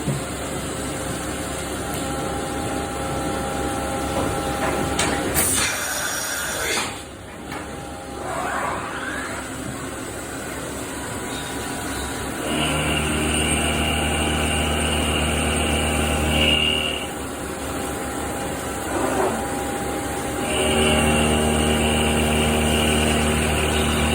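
CNC machining center milling SS400 steel: the spindle and machine run steadily, with a short loud hiss about six seconds in and a sweep in pitch soon after. Two steady cutting passes follow, each about four seconds long, with a steady hum and a high whine from the tool in the cut.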